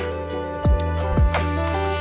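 Background music: sustained chords over a deep, repeating kick-drum beat.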